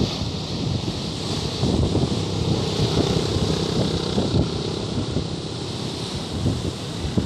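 Strong storm wind buffeting the microphone in uneven gusts, with the hiss of storm surf breaking along a seawall behind it.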